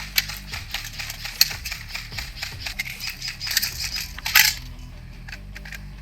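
A fast, irregular clatter of sharp small clicks and hard impacts from airsoft fire and BBs striking for about four and a half seconds, ending in a louder cluster just before it stops.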